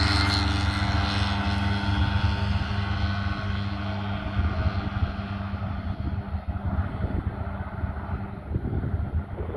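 Light propeller plane's engine drone, steady in pitch, fading as it moves away; its higher tones drop out about halfway through.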